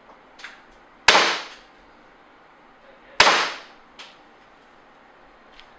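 Tokyo Marui M&P9 gas blowback airsoft pistol firing two single shots about two seconds apart, each a really loud sharp crack of gas and slide blowback with a short fading tail. Weaker single clicks come before the first shot and after the second.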